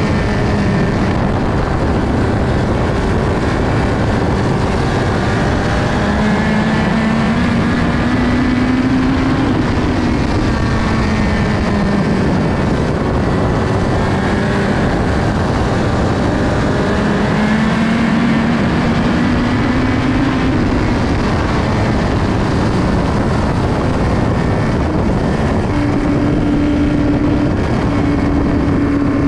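Onboard sound of a USAC midget's four-cylinder racing engine at full race speed on a paved oval, its pitch climbing twice down the straights and dropping back through the turns, over a steady rush of wind noise.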